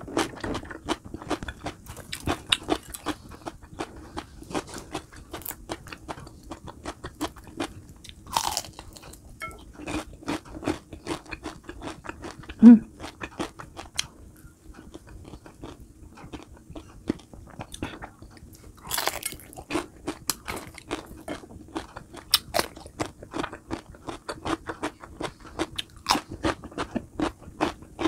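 A person chewing and crunching crispy fried food, with many small crunches and mouth clicks, and one short, louder, low sound about halfway through.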